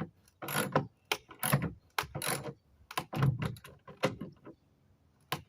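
Pneumatic impact wrench driving a bolt through framing in a series of short, uneven bursts.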